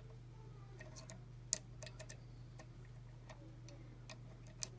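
Metal lock pick clicking and ticking against the pins inside a pin-tumbler lock's keyway, irregular small clicks with two sharper ones, about a second and a half in and near the end, over a steady low hum.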